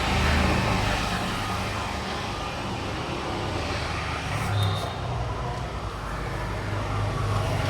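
Steady road traffic noise: a continuous low engine rumble under an even hiss, swelling briefly about halfway through.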